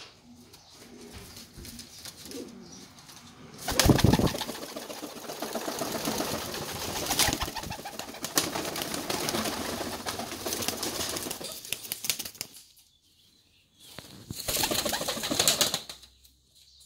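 Reversewing Pouter pigeons cooing softly, then loud wing-flapping from about four seconds in that lasts several seconds. A second, shorter burst of flapping comes near the end.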